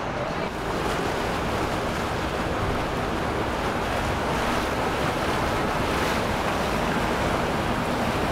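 Steady rushing of water and wind noise from passing boats, with a faint low boat-engine hum coming in about halfway through.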